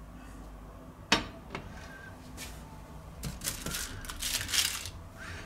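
A cast-aluminium grill pan set down on a glass-ceramic hob with a sharp clack about a second in, then a lighter knock. Near the end come a couple of seconds of scattered rustling and clinks from handling.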